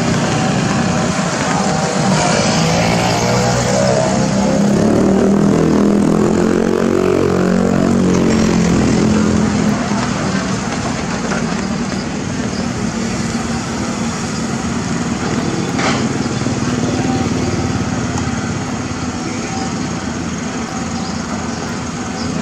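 Diesel engine of a CAT 320D hydraulic excavator running under load while it digs and loads soil. Its pitch rises and falls in the first half, then settles into a steadier run, with a single sharp knock past the middle.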